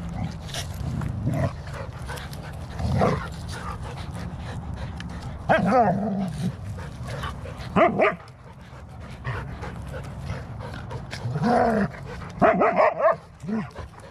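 Dogs play-fighting, a border collie and a husky, letting out short barks and yips in several bursts. The loudest cluster comes near the end.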